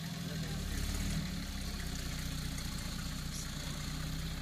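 Engine of an off-road buggy running at low revs as it crawls through deep mud. The note steps up slightly about half a second in and then holds steady.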